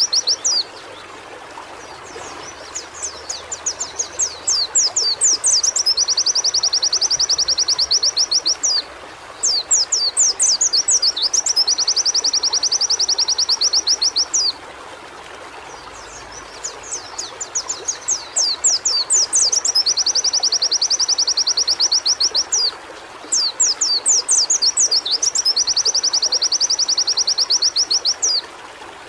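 Pleci (white-eye) singing loudly: four song phrases, each a run of quick up-and-down sweeping notes that runs into a long, very fast trill, with short pauses between phrases.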